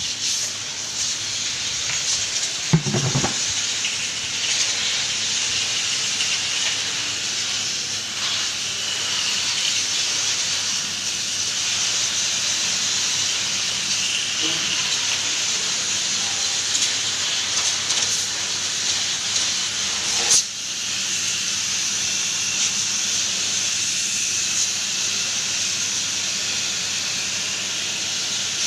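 Pressure-washer water jet spraying onto the coil of a wall-mounted split air-conditioner indoor unit as it is cleaned: a steady hiss. There is a short knock about three seconds in, and a click with a brief break in the spray around twenty seconds in.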